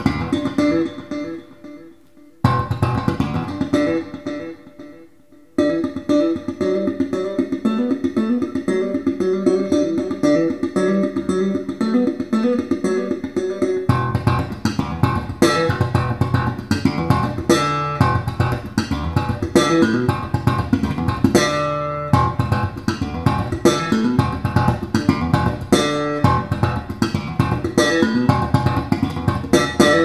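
A pair of Dali Ikon 6 MK2 floorstanding loudspeakers playing a jazz track with guitar and bass guitar. The music drops to a softer passage for a few seconds near the start, then comes back fuller.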